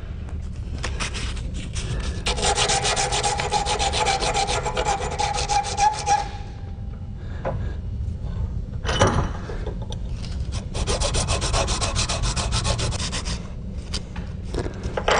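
Rapid back-and-forth rasping of a steel shotgun extractor on a hand file as its face is cleaned up, in two bouts of about five seconds with a pause and a knock between. A steady ringing note runs through the first bout.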